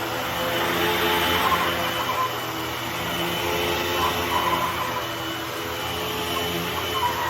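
Hoover WindTunnel T-Series bagged upright vacuum cleaner running with a steady drone, with short squeaks coming and going every second or two, which the owner puts down to the wheels needing oil.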